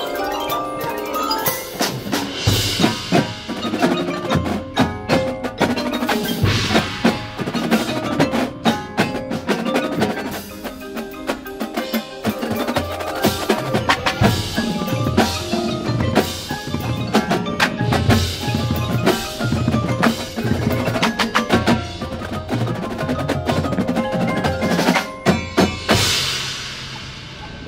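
Indoor percussion ensemble playing: marimbas and other mallet keyboards with crashing suspended cymbals, over snare, tenor and bass drums. Near the end a loud cymbal crash rings and dies away.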